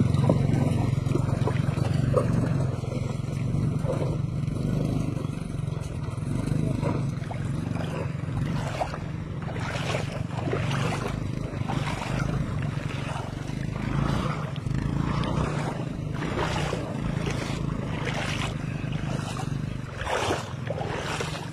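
Motorcycle engine running steadily while the bike is taken through a shallow river, with water splashing repeatedly around it from about a third of the way in.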